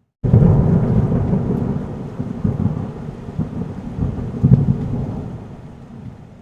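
Thunder rumbling over rain, starting abruptly and fading away over several seconds, with a few swells in the rumble along the way.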